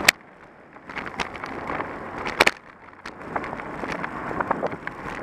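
Wind rushing on the microphone and tyre noise from a road bike riding on asphalt. Two loud sharp knocks, one at the very start and one about two and a half seconds in, each followed by a brief lull in the rush, with smaller clicks scattered throughout.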